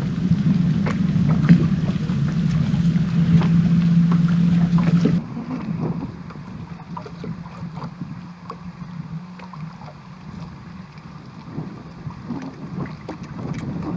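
Wind buffeting the microphone, heavily noise-reduced: loud rumbling for about five seconds, then dropping off suddenly to a quieter rushing with scattered small clicks.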